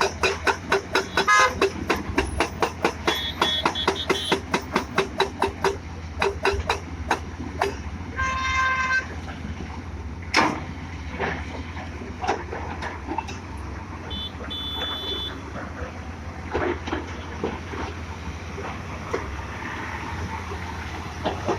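Excavator engine running with a steady low rumble and a rapid rhythmic clatter of about four strokes a second that fades to scattered knocks after the first third. A vehicle horn honks once for about a second a little over a third of the way in.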